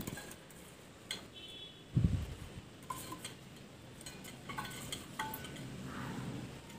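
A metal spoon clinking and scraping against a stainless steel bowl while spooning melted chocolate, with several short metallic rings. A dull thump about two seconds in is the loudest sound.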